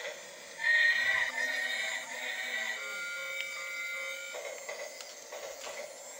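Battery-operated light-up toy train playing its electronic tune: a melody of high tones, loudest for about a second starting just under a second in, with held notes about halfway through.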